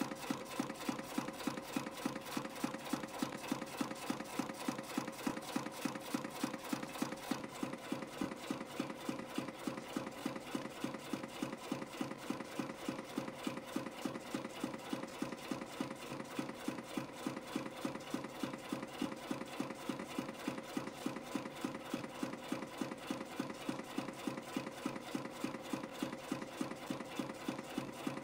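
YHM CF Series CNC spring-coiling machine forming compression springs from 0.35 mm wire at about 200 a minute: a fast, even clatter of about three strokes a second over a steady tone.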